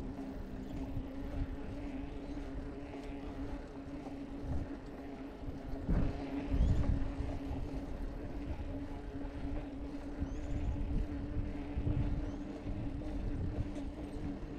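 Riding noise from a bicycle rolling along a paved path: a steady hum under gusts of wind buffeting the microphone, the strongest gust about six seconds in.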